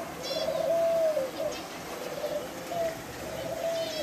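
Doves cooing over and over in overlapping calls, with a short high bird chirp about a quarter second in and again near the end.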